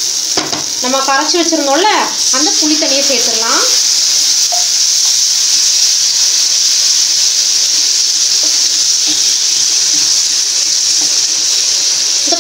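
Garlic kuzhambu gravy sizzling in a nonstick frying pan as it is stirred with a wooden spatula, a steady frying hiss throughout. A voice talks for a few seconds about a second in.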